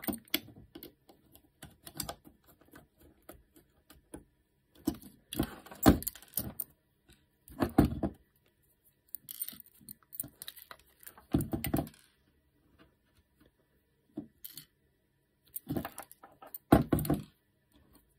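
A small screwdriver and small screws clicking and rattling against 3D-printed plastic parts while a clamp is screwed onto a servo base, in irregular clusters of clatter with a few louder knocks.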